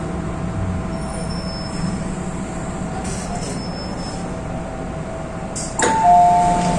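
Steady low hum of an MTR M-Train standing at a platform, heard from inside the car. Near the end a click is followed by the train's loud high-low two-tone door chime, the warning that the doors are about to close.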